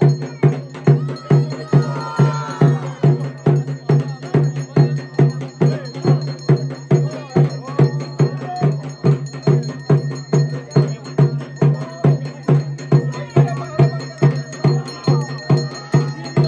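Ritual percussion music: a metal bell-like instrument struck in a steady, even beat of about two and a half strokes a second over a sustained low ringing tone, with voices faintly heard now and then.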